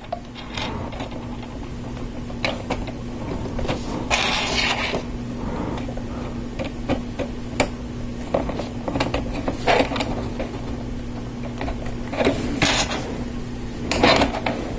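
LEGO Technic plastic parts clicking and rattling as axles are pushed through the gears of a gearbox assembly. The clicks are scattered, with a longer rattle about four seconds in and more just before the end, over a steady low hum.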